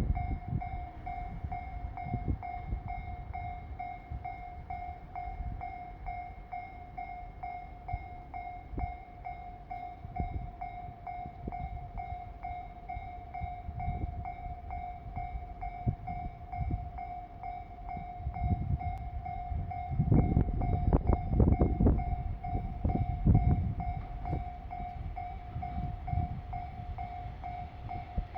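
Japanese level-crossing warning bell ringing in a steady, even pulse while a diesel train rumbles over the crossing at low speed, loudest about twenty seconds in.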